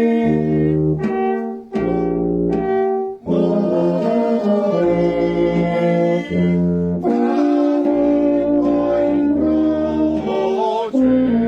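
Brass band playing held chords over a deep bass line, with short breaks between phrases about two and three seconds in.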